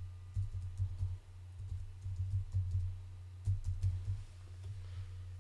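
Typing on a computer keyboard: several short runs of keystrokes with brief pauses between them, over a steady low hum.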